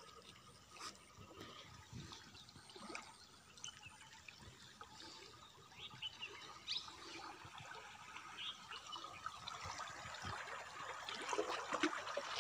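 River water gurgling and trickling around a wooden dugout canoe's hull as it moves through rippling shallows, growing louder toward the end.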